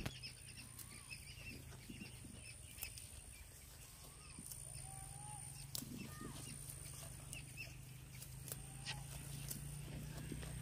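A goat grazing in green fodder, tearing and chewing the plants, with a few sharp clicks spread through it. Scattered faint bird chirps sound over a low steady hum.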